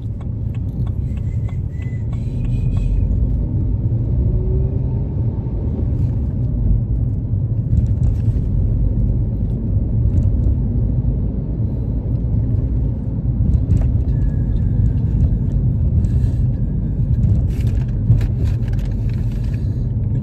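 Car cabin noise while driving: a steady low rumble of engine and tyres heard from inside the car, getting louder about two seconds in, with a few faint clicks and rustles.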